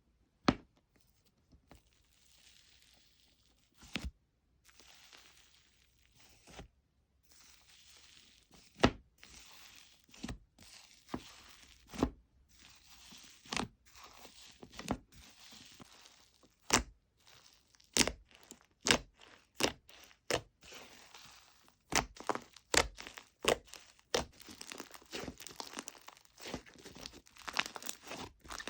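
Fluffy slime being handled: sharp pops and clicks at irregular intervals, with soft crackling in between. The pops come more often toward the end.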